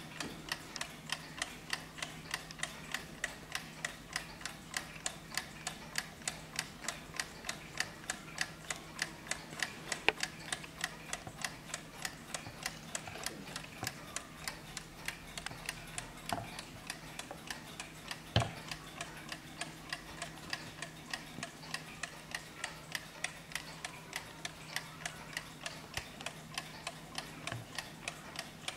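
Antique 1906 Junghans mantel clock movement ticking steadily and evenly. Two louder knocks come about ten and eighteen seconds in.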